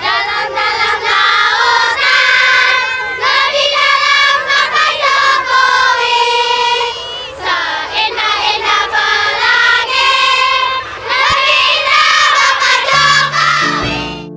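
A crowd of schoolchildren singing loudly together in high voices. Near the end the singing fades and a piano comes in.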